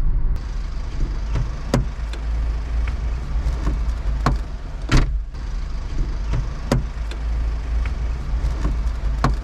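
Renault Fluence car door being moved, its door check strap (limiter) giving a series of sharp, irregular clicks, the "tec, tec, tec" that the owner puts down to slack in the limiter's bolts. A steady low rumble runs underneath.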